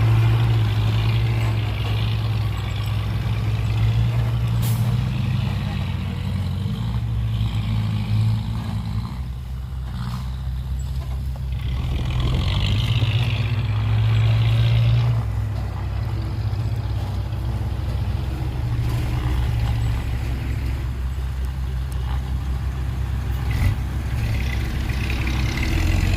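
Dump truck's diesel engine running with a steady low drone that swells and eases slightly, with a few faint clicks.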